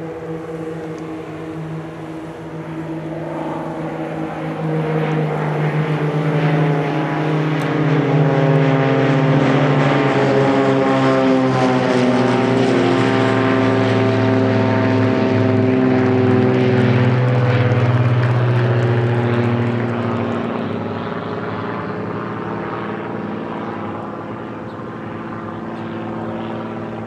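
A formation of Beechcraft Bonanza single-engine propeller planes flying over, several piston-engine drones at slightly different pitches. The sound swells as they approach, is loudest for about ten seconds overhead, then drops in pitch and fades as they pass and draw away.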